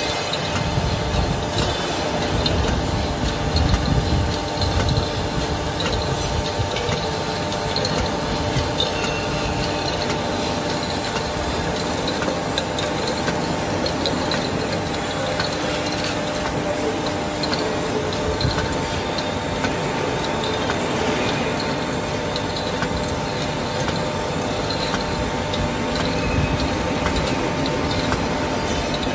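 Aluminium tube latexing machine running steadily: a motor hum with several constant tones and a light rattle of tubes moving through its turret and along the conveyor.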